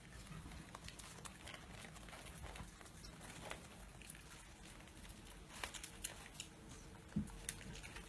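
A raccoon eating small pieces of dried fruit: faint scattered clicks and rustles from its paws handling food and picking pieces off a tray, with a slightly louder knock near the end.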